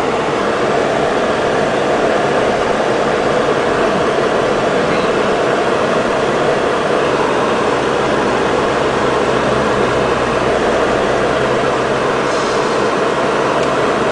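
A car driving through a flooded street, heard from inside: a loud, steady rush of water and rain with the engine droning underneath, the engine louder from about eight to twelve seconds in.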